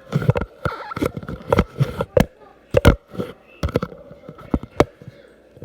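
Irregular knocks and thumps, several a second, over a steady hum: a phone tumbling and bumping around inside a running washing machine drum.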